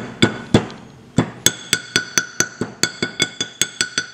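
Small hammer tapping the steel-backed dust seal into a four-piston brake caliper's bore, seating a seal that sat high on one edge. A few spaced taps, then from about a second and a half in a quick run of about four taps a second, each ringing metallically.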